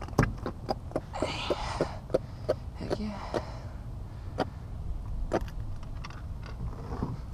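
A small jack crevalle thumping and slapping on a boat deck while a hand holds it down: irregular sharp knocks and taps, with rustling from handling.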